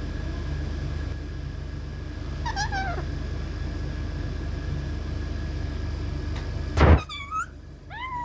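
Indian ringneck parrot calling: a short falling call early, then a loud harsh screech about seven seconds in, followed by a quick run of short curved chirps and two arched calls near the end. A steady low hum runs underneath.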